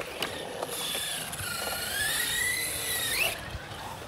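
An electric RC car's motor whining, its pitch gliding up and down with the throttle, with a few short clicks and knocks.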